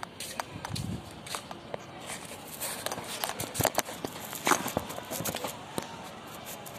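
Footsteps: a run of irregular scuffs and clicks, busiest around the middle.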